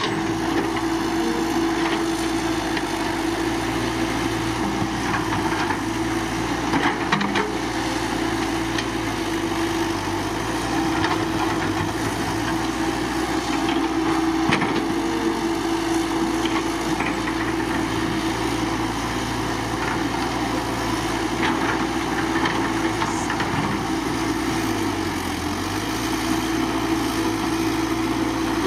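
Caterpillar 312BL excavator's diesel engine running steadily, with a few sharp knocks and scrapes from the bucket working rock and soil.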